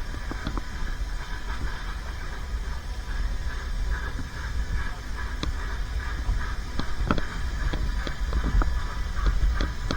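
Narrow-gauge steam train running on the Welsh Highland Railway: a steady low rumble with scattered clicks and knocks.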